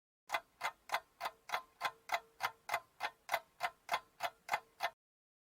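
Slava mechanical alarm clock ticking steadily, about three ticks a second, each a sharp click with a faint metallic ring. The ticking stops suddenly near the end.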